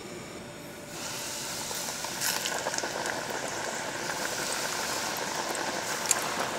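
Hot oil sizzling steadily in a pot as flour-coated chicken pieces are lowered into it for deep-frying. The sizzle starts suddenly about a second in, with a few light clicks.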